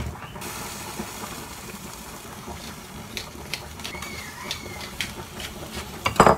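Food sizzling steadily in a frying pan, with a few sharp clicks and knocks of kitchen utensils, and a loud sudden sound near the end.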